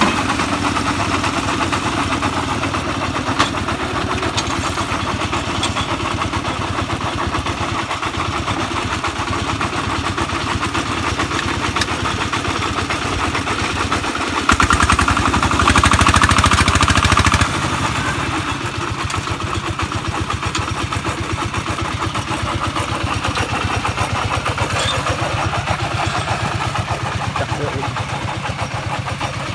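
Công nông farm vehicle's single-cylinder diesel engine running steadily with a fast, even firing beat. It gets louder for about three seconds midway, then settles back.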